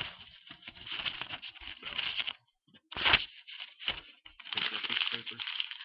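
A sheet of paper crinkling and rustling as a dulled knife edge is pushed and dragged into it without slicing through, in several irregular bursts, with a sharper crackle about three seconds in. The edge has been deliberately ruined on a coarse stone, so it only crumples the paper.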